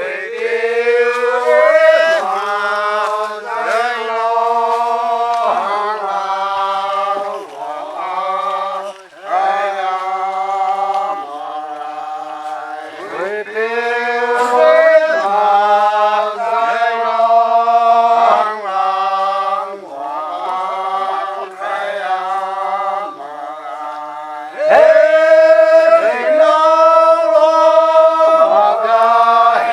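Rongmei men singing a traditional forest folk song without accompaniment, in long held notes that slide up into each phrase with short breaks between. The singing gets louder about five seconds before the end.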